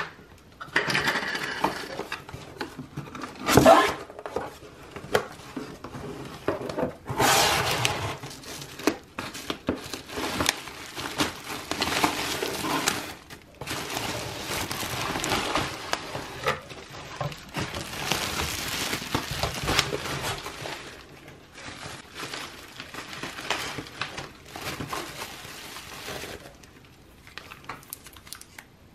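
Cardboard box and bubble wrap being handled by hand, with irregular rustling and crinkling as the wrapped items are lifted out and turned over. A sharp knock about three and a half seconds in is the loudest sound.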